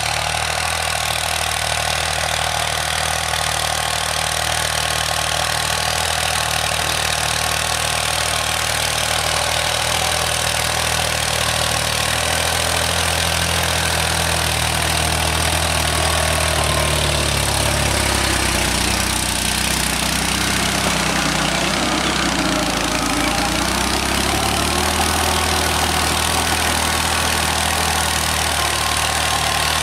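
Mahindra Yuvo 575 DI tractor's four-cylinder diesel engine running steadily under load while it drives a rear-mounted rotary tiller through the soil. Its note shifts a little about halfway through, then settles again.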